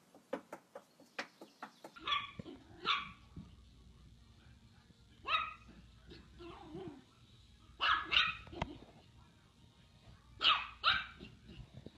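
A wagging dog's tail knocking against a wooden table, about four knocks a second, for the first two seconds. Then a dog barking in short high yaps, mostly in twos, four times over.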